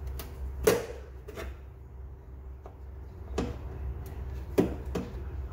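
Needle-nose pliers working a plastic wiring-harness clip loose: a handful of sharp clicks and knocks, the loudest about two thirds of a second in and again near the end, over a steady low hum.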